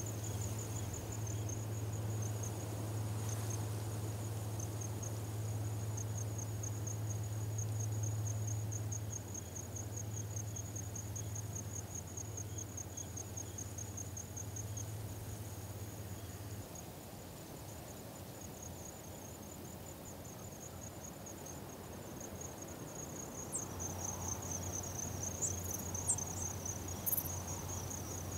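Grassland insects trilling, a steady, rapidly pulsing high-pitched chorus. Under it runs a low steady hum that drops away just past halfway and returns near the end. A few short high chirps come near the end.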